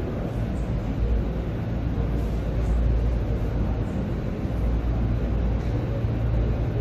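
Steady low background rumble of room noise with no distinct events.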